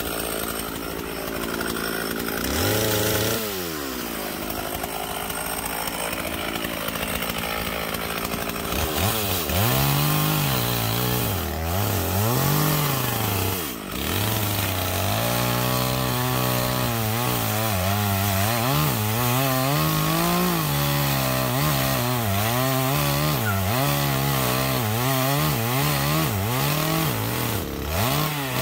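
Chainsaw cutting through logs. It revs up briefly about three seconds in, then cuts steadily, its pitch repeatedly sagging as the chain bites into the wood and rising as it comes free.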